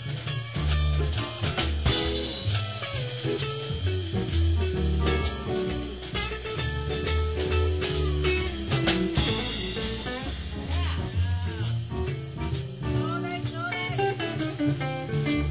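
Live band playing an instrumental passage: a drum kit keeping a steady beat under a walking bass line, with guitar and other melody instruments on top.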